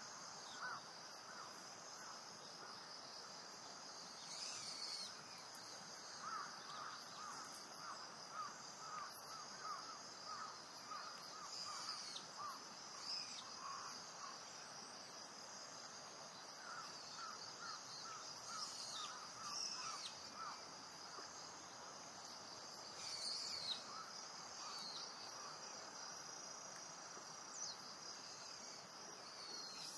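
Natural outdoor ambience: insects chirr steadily and high-pitched. Over it come scattered bird chirps and two runs of rapid, evenly repeated bird notes, the first a few seconds in and the second past the middle. A single brief sharp click sounds about nine seconds in.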